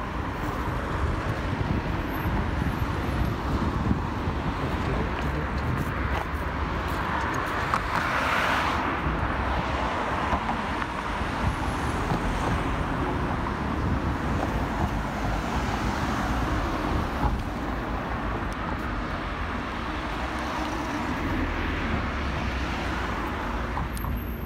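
Road traffic: cars passing on a city street, their tyre and engine noise swelling loudest as one goes by about eight seconds in, with more passing later, over a steady low rumble.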